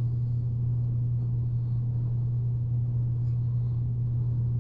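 A steady low hum that does not change, with nothing else standing out over it.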